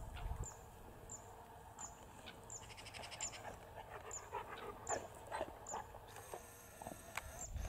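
Outdoor wildlife ambience: a short high note repeats about every half second, with scattered fainter animal calls in the middle and a low rumble at the start and end.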